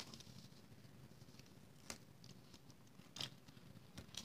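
Faint crackles and a few brief ticks of double-sided adhesive tape being torn from its roll and pressed onto cardstock, over near silence.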